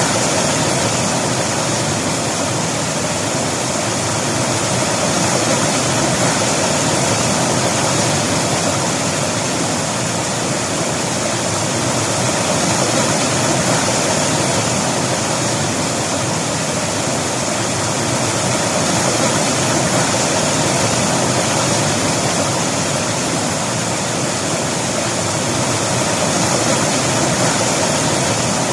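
River water rushing over rocks, a steady loud rush that swells and eases slightly every few seconds.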